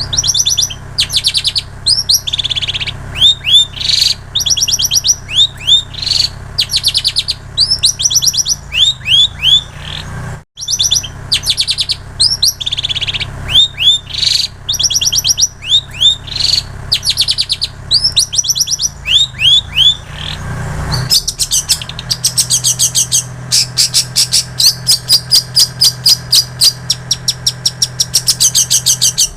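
Long-tailed shrike (cendet) singing a mimicking song of quick repeated high chirps and trills, copied from prinia and canary song. It drops out briefly about a third of the way through, and from about two-thirds through it turns into a denser, faster trill. A steady low hum runs underneath.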